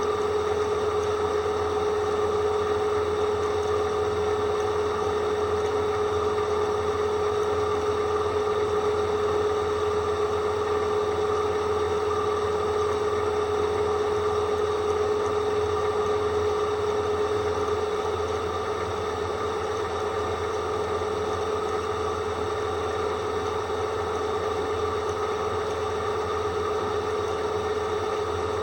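Blunt drill bit whistling: one steady, unwavering tone over the low hum of the drill's motor, signalling a dull bit.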